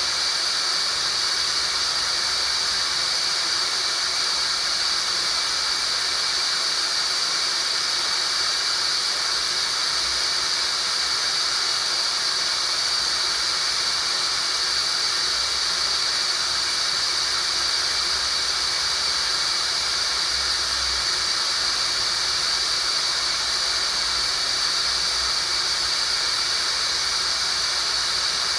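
Tinnitus-relief sound-therapy audio: a steady synthetic hiss centred on one high pitch, unchanging throughout.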